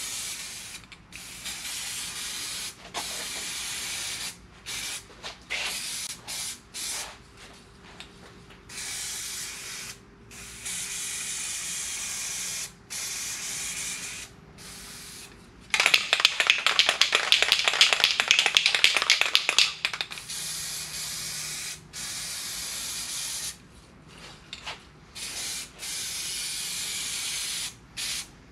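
Aerosol can of SEM self-etching primer spraying in short hissing bursts of a second or two, stopping and starting. About sixteen seconds in, a louder rapid rattling lasts about four seconds: the can being shaken, its mixing ball rattling.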